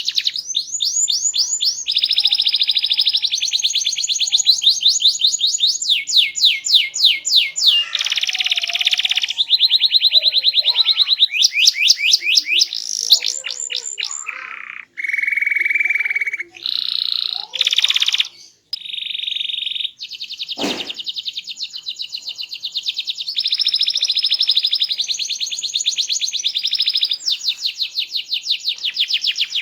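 Domestic canary singing a long, loud, varied song of fast rolling trills, rapid repeated notes and buzzy held phrases, with a few short pauses past the middle. A single dull knock sounds about two-thirds of the way in.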